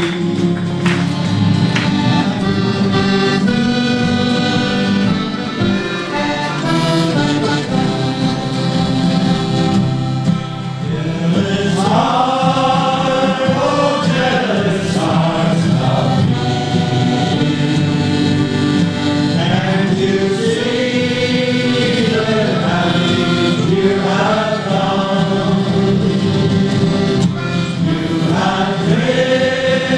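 Amateur male choir singing with a folk band of acoustic guitars, accordion and banjo, in a steady rhythm. The voices come through strongly from about twelve seconds in.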